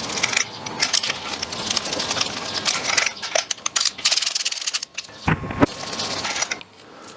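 Dense metallic clicking and rattling of a ratchet and spark plug socket as a spark plug is worked loose from the Mazda 1.8 VVT engine's cylinder head, with a dull thump about five seconds in.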